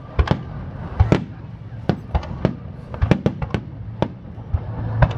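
Fireworks display: aerial shells bursting in a quick, irregular series of about a dozen sharp bangs, several coming in a cluster a little past the middle.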